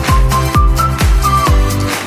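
Electronic dance music: a kick drum on a steady beat about twice a second under a bass line and a high, whistle-like lead melody.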